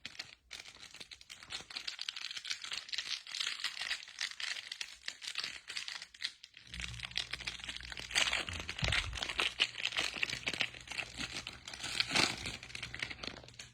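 Wrapper of a Panini Mosaic hanger pack of football cards crinkling and tearing as it is opened by hand, a dense run of rapid crackles. A low steady hum comes in about halfway.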